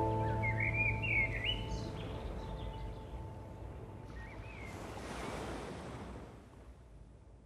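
The last held note of the closing music dies away under a few bird chirps, then a soft rushing swell like surf or wind rises and fades out.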